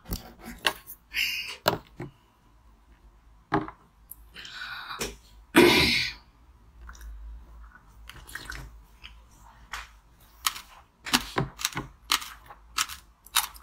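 Spoon working through a passion fruit and dragon fruit mixture in a gold bathtub-shaped bowl, with a louder swishing scoop about five seconds in. Near the end come eating sounds: quick, small clicky crunches in fast succession as the spoonful is chewed.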